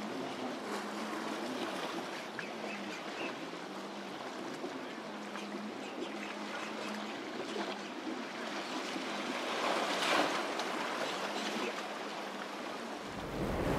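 Rough surf: waves breaking and water rushing, swelling louder about ten seconds in, over a faint steady hum.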